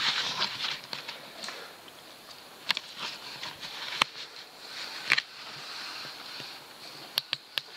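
Mountain bike rolling down a rocky dirt trail towards the listener, with a few sharp clicks and knocks from the bike, three close together near the end, over a faint steady hiss.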